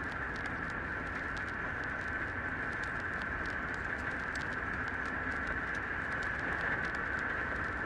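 Puppy suckling at its mother's teats: soft, irregular clicking and smacking over a steady high-pitched background hum.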